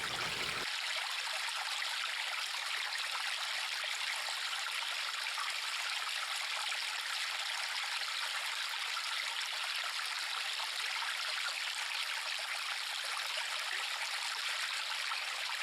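River water flowing: a steady, even rush of running water, light and hissy with no low rumble.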